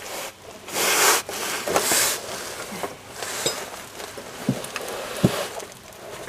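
Rubbing and scraping as a solid steel sway bar is shifted and handled on a sheet of cardboard: two longer scrapes in the first two seconds, then scattered light knocks and clicks.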